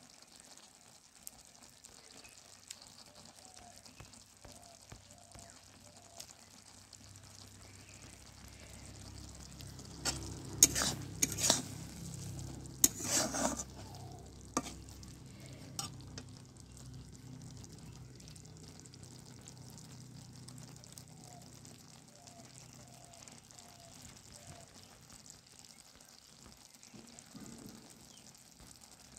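Noodles in masala sauce sizzling faintly in an iron kadhai, with a flat metal spatula scraping and stirring against the pan in a short run of loud strokes about midway.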